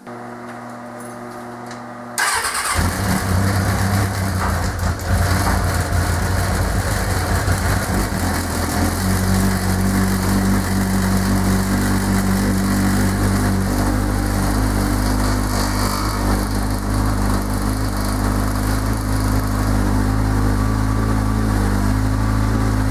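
Motorcycle engine cranked over for about two seconds, then catching and running at a steady idle, its exhaust fed into a flexible aluminium vent hose of a workshop fume extractor.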